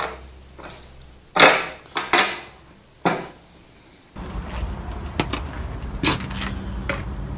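Small metal objects set down one by one on an enamel metal tray: a few sharp clanks and knocks. About four seconds in the sound changes abruptly to a steady low hum with occasional light clicks.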